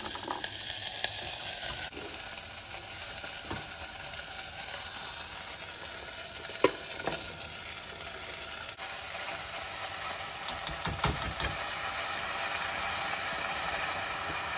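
Vegetables frying in a little oil in an open pressure cooker on a gas flame, with a steady sizzle. A spoon stirs and clicks against the metal pot now and then, with a quick run of clicks about ten to eleven seconds in.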